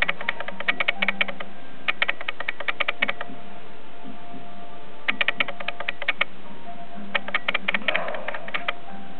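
Rapid sharp clicking in four runs of about a second each, several clicks a second, with short pauses between runs.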